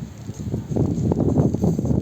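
Wind buffeting the microphone, a low, irregular rumble that gusts stronger from just under a second in.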